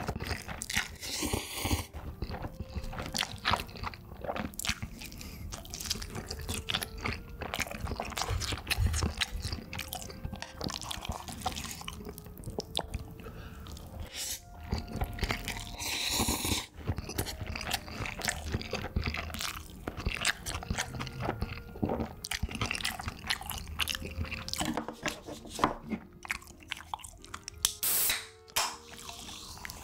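Close-up eating sounds: chewing, lip smacks and slurping of spicy stir-fried instant cup noodles (Shin Bokkeutti). Near the end, an aluminium soda can is cracked open with a sharp pop.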